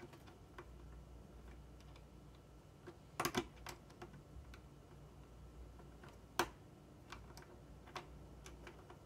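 Hard plastic LEGO pieces clicking and tapping while gears are fitted into the build: scattered light ticks, a short cluster of clicks about three seconds in, and one sharp click a little after six seconds.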